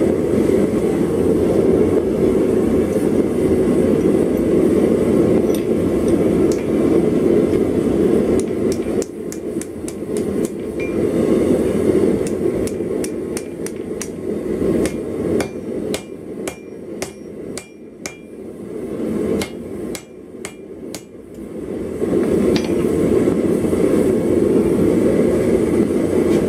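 Blacksmith's hand hammer striking hot steel on an anvil: a run of strikes through the middle, roughly one to two a second, each with a short metallic ring. A steady rushing noise runs underneath and is loudest when the hammering stops.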